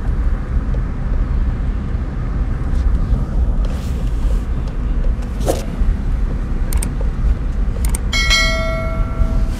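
Steady low rumble of a car driving along a road. Near the end a few clicks are followed by a ringing bell chime about a second long: the sound effect of a subscribe-button animation.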